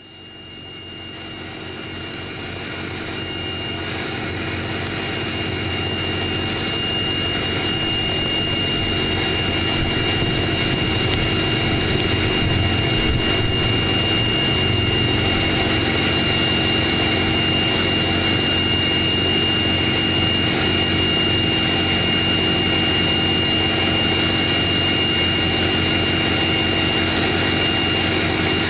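Ford Powerstroke turbo-diesel engine idling steadily, with a high-pitched turbocharger whistle holding one steady pitch above the engine's run. The sound grows louder over the first ten seconds or so, then stays even.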